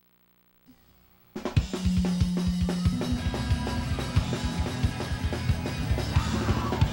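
Silence, then a little over a second in a band's music starts abruptly, driven by a drum kit with bass-drum and snare hits under a held bass note.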